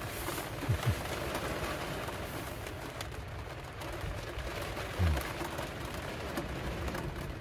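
Rain tapping steadily on the roof of a camper van, heard from inside. Two short, low, falling hums come through, about a second in and about five seconds in.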